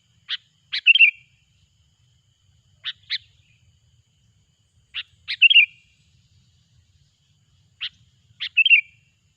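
Sooty-headed bulbul (kutilang) calling in four short phrases, roughly every two and a half seconds. Each phrase is a couple of sharp clear notes followed by a quick bubbling flourish.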